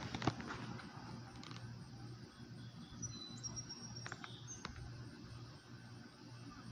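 Quiet backyard background: a few light clicks near the start and again around four seconds in, and brief high chirping tones in short steady steps between about three and five seconds in.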